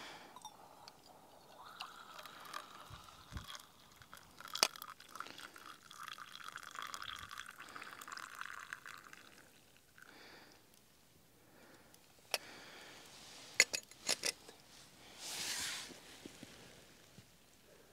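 Coffee poured from a stainless steel pot into a small steel camping mug, a steady trickle for several seconds. After a pause come several sharp metal clinks as the pot and mug are handled and set down, then a brief hiss.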